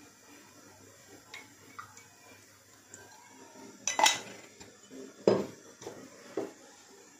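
Kitchenware clattering: after a few quiet seconds, four or so sharp knocks and clinks of utensils, pots and pans, the loudest about four and five seconds in.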